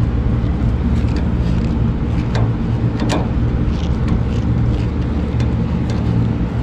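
Steady low machine hum, like an engine running, with a few small metallic clicks from a screwdriver working the filter-drier clamp screw.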